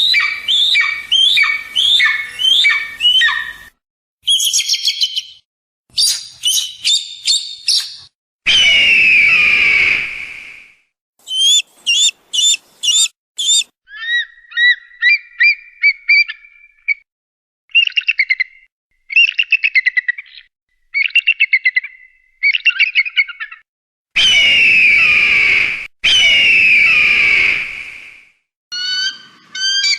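Eagle and hawk calls in a run of separate recordings: quick series of high, shrill chirps and whistles, alternating with long, hoarse, falling screams of about two seconds each, one near the middle and two back to back near the end.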